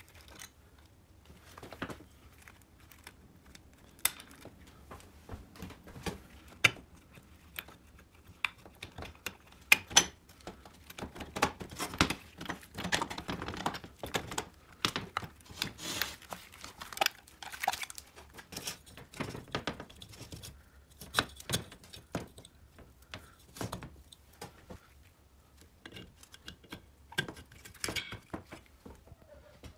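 Parts of a Riga-12 moped engine being handled and taken apart: irregular clicks, knocks and rattles of metal parts and tools against the aluminium crankcase, busiest around the middle.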